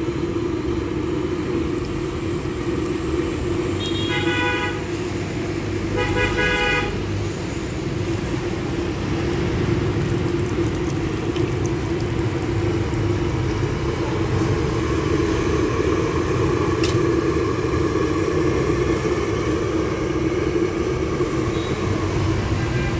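Steady roadside traffic noise with two short vehicle horn toots, about four and six seconds in, over the sizzle of dough sticks deep-frying in a wok of oil.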